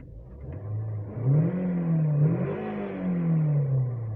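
Toyota Vios car engine running and revved twice, its pitch rising and falling back toward idle each time. The car starts hard, but the engine runs without misfiring once it has started.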